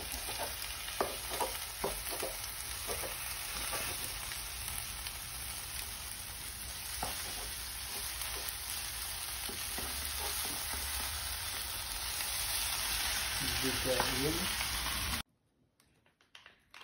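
Shredded cabbage, vegetables and cheese sizzling in a nonstick frying pan over a gas burner while being stirred, with short scrapes of the utensil against the pan. The sizzle is steady and cuts off suddenly near the end.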